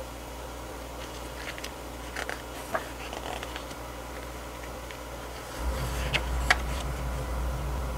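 Glossy pages of a large photobook being handled and turned: soft paper rustles and a few small clicks, with two sharper clicks just after a low steady rumble comes in about two thirds of the way through.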